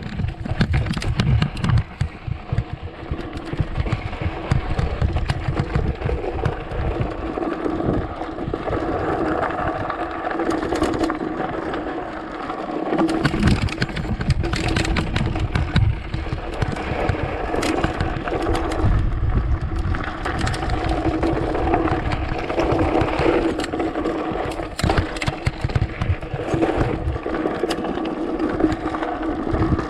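Chainless mountain bike ridden fast down a rough dirt trail: tyres rolling over rocks and roots, with frequent sharp knocks and rattles from the frame and suspension, over a constant low wind rumble on the microphone.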